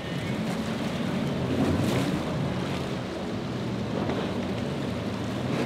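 Several large outboard motors on a center-console boat running under power through rough water, a low wavering engine drone under the wash of waves and spray, with wind on the microphone.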